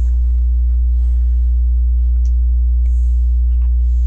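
Steady electrical mains hum with a buzz of evenly spaced overtones, the loudest thing throughout, with a few faint clicks and rustles of plastic Lego pieces being handled.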